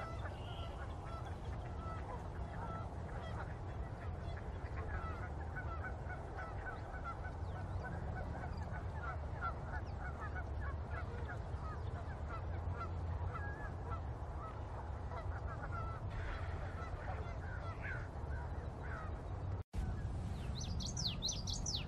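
Many short bird calls repeating over a steady low rumble. Near the end, after a brief gap in the sound, higher, quicker chirps.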